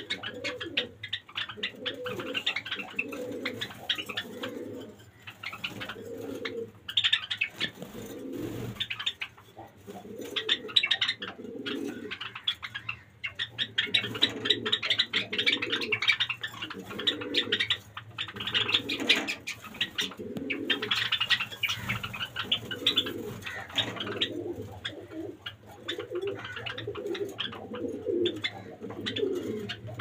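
Pigeons cooing over and over in low, repeated phrases, with a flock of Java sparrows chirping and clicking busily above them.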